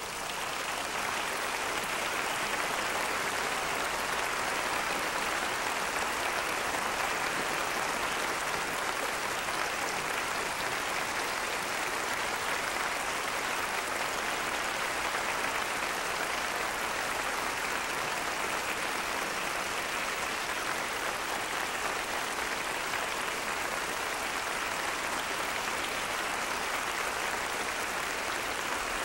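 Large audience applauding in a concert hall: dense, steady clapping that swells within the first second and then holds at an even level.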